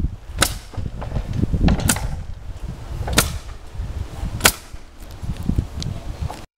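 Pneumatic nail gun firing siding nails into fibre-cement lap siding: four sharp shots about a second and a quarter apart, then a fainter one, over a low rumble.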